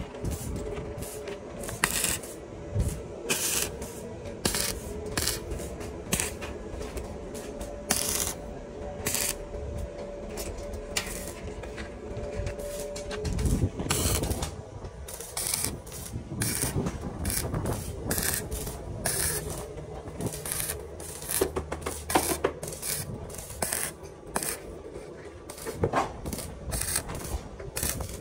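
Metalworking on iron bar stock: irregular sharp clicks and knocks of metal being struck and handled, over a steady hum that stops about halfway through.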